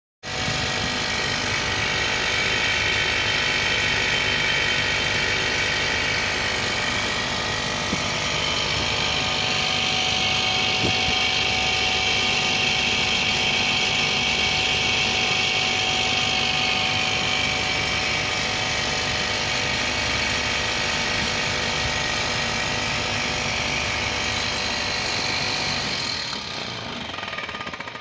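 Outdoor unit of an O-General duct split air conditioner running, its three-phase Copeland scroll compressor and condenser fan making a steady mechanical hum. The sound grows quieter near the end.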